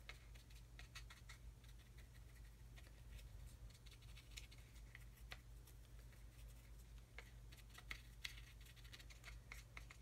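Near silence, with faint irregular scratching and light ticks of a paintbrush working dry weathering pigment onto a small model part and against a glass dish, over a low steady hum.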